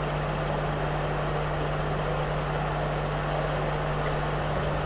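Steady electrical hum from the sound system, a low mains buzz, with an even hiss over it and no other events.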